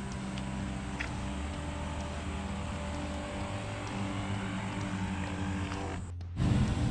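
A steady low motor hum with an even, engine-like drone. It drops out briefly near the end and comes back louder.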